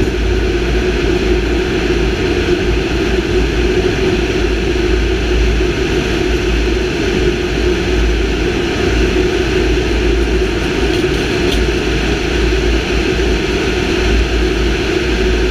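Cabin noise inside a CASA C-295 transport aircraft in flight with its rear cargo ramp open: a loud, steady drone of its two turboprop engines with a low rumble, mixed with wind rushing past the open ramp.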